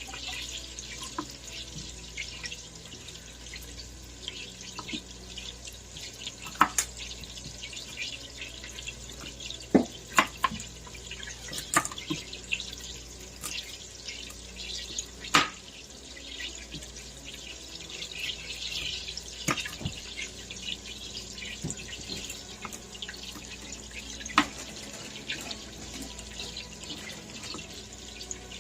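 Kitchen tap running steadily into a sink, with scattered sharp knocks and clatters of things handled in it.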